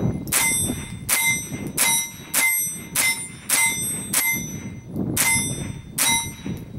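Winchester Model 63 .22 LR semi-automatic rifle fired in a quick string, about nine shots at roughly one and a half a second with one short pause partway through. Each crack carries a brief metallic ring.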